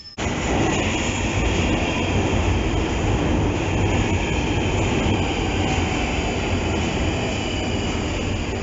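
London Underground tube train running past the platform close by: a steady, loud mechanical noise that starts suddenly just after the beginning.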